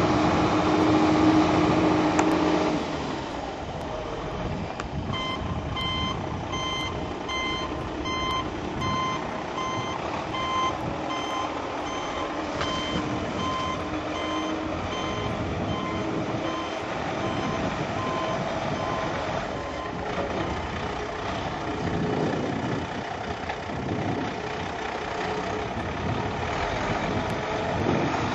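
Diesel engine of a bobtail truck tractor running on gravel, louder in the first few seconds, with its backup alarm beeping in a regular series from about five seconds in until about two-thirds of the way through as the truck reverses to turn around.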